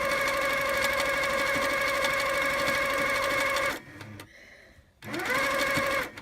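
Handi Quilter HQ Sweet Sixteen quilting machine running steadily as it stitches free-motion lines. It stops about four seconds in, then starts again with a rising whine as it comes up to speed, and stops again near the end.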